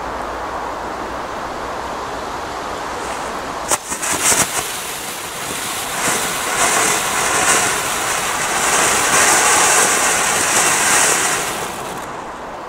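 A 1989-vintage ground firework going off. A few sharp pops about four seconds in as it catches, then a loud, pulsing hiss of spraying sparks for about seven seconds that cuts off near the end.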